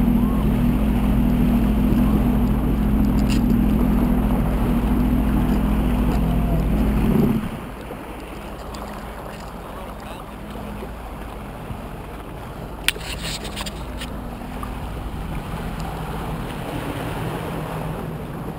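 Jet ski engine running steadily, then throttled back sharply about seven seconds in and carrying on at a much quieter idle. A brief clatter of clicks about thirteen seconds in.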